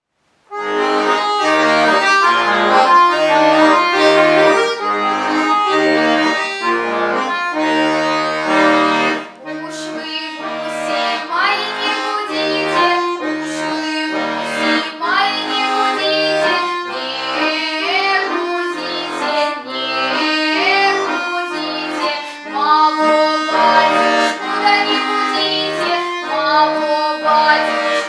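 Accordion playing a chordal introduction with a rhythmic bass. About nine seconds in, a young girl's voice starts singing a Russian folk song over the accordion accompaniment.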